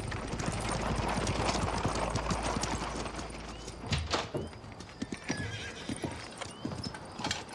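Horse hooves clip-clopping as a one-horse buggy rolls along, with the low rumble of its wheels. The rumble drops away about four seconds in, on a sharp knock.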